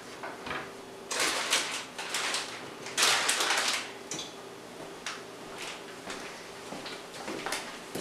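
Kitchen handling noises: a cupboard door being handled and snack packaging rustling and crinkling in short bursts, the loudest about three seconds in, over a faint steady hum.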